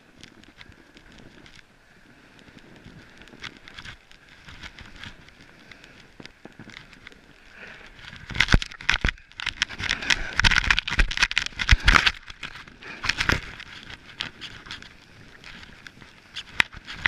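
Snowboard sliding and scraping over snow. It is fairly quiet with scattered knocks and rustles at first, then loud and busy for several seconds from about halfway in, with hissing snow and sharp knocks and scrapes from the board's edges, before settling again near the end.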